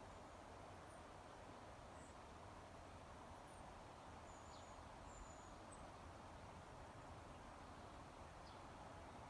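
Faint, thin, high-pitched bird calls, single short notes scattered every second or two, over a steady background hiss.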